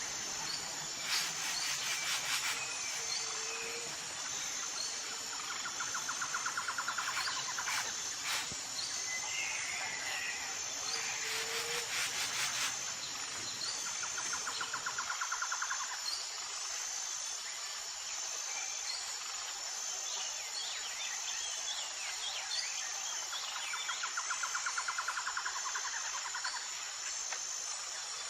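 Outdoor nature ambience: insects keep up a steady high-pitched pulsing trill throughout. A lower pulsed trill of about a second and a half repeats four times, and birds chirp now and then. A few brief crackles sound near the start.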